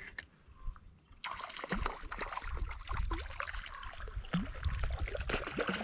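Hooked rainbow trout splashing and thrashing in shallow water at the bank as it is landed with a net, starting about a second in and going on in quick, uneven splashes.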